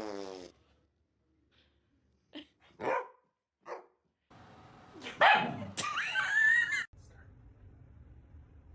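A dog barking: a few short, separate barks, then louder barking and a longer wavering cry about five seconds in.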